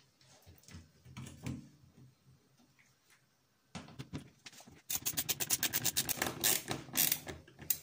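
Hand screwdriver driving a self-tapping screw through a wooden hanger into a screw-in drywall anchor. Light scraping and knocking comes first, then a fast, even run of clicks, about ten a second, for a couple of seconds near the end.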